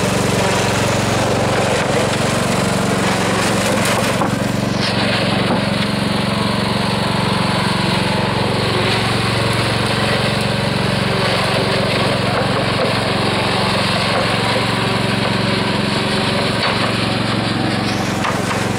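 Riding lawn mower engine running steadily at a constant pitch.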